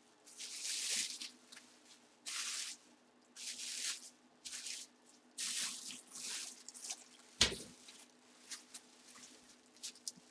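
Clear plastic bubble wrap crinkling and rustling as hands unwrap a box, in several short bursts, with one sharp snap about seven seconds in.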